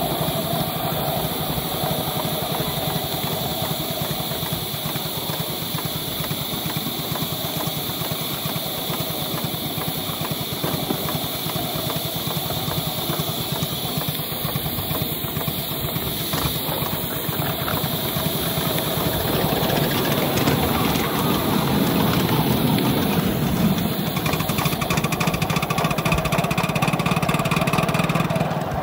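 5-inch gauge Polly Trojan live-steam locomotive, fitted with a Kordina exhaust, working along under steam with a rapid, even beat from its exhaust and its wheels running on the rails. It grows louder from about twenty seconds in.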